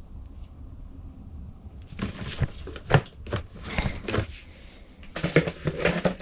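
A string of sharp clicks, knocks and rustles from objects being handled, starting about two seconds in, with a few short low murmurs near the end.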